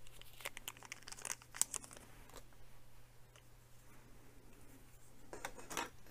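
Faint crinkling and light clicks of hands rummaging among small model-kit parts and packaging, in two spells: through the first two seconds and again near the end, over a faint steady low hum.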